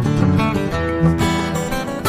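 Background music: an acoustic guitar piece with plucked and strummed notes.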